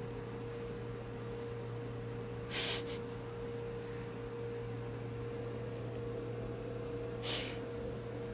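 Two short, breathy nasal snorts about five seconds apart, over a steady low hum.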